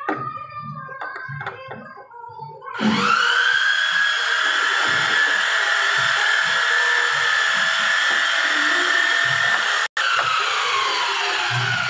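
Electric drill motor driving a homemade wood lathe: it spins up about three seconds in with a rising whine, then runs steady and loud at high pitch. Its pitch sags slowly after a momentary break near the end.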